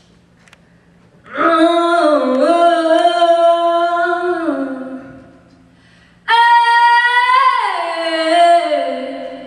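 A woman singing solo into a microphone with little or no accompaniment: two long held phrases with a short gap between them, each sliding down in pitch as it ends.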